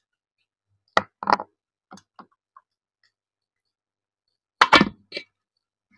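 Short knocks and clicks of eating at a table, a few scattered ones about a second in, then a louder cluster of knocks near the end.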